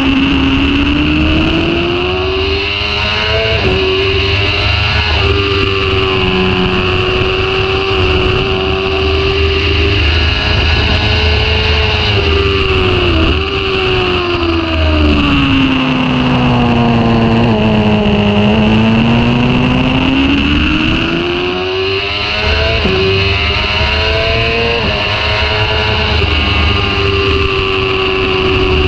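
High-revving sport bike engine heard from on board at speed, its pitch climbing and stepping down at gear changes, sinking as it slows a little past halfway, then climbing again.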